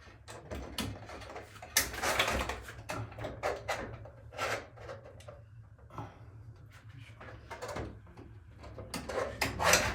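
Clicks, knocks and scraping of roller-shutter parts being handled and shifted into place during installation, with a rougher scraping rattle about two seconds in and again near the end.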